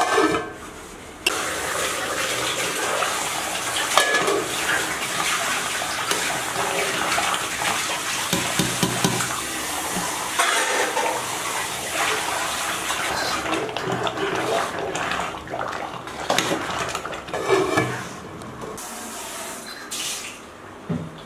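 Water pouring and sloshing in a metal cooking pot as rice and water go into tomato biryani masala and are stirred with a slotted ladle. The sound starts suddenly about a second in and dies down a few seconds before the end.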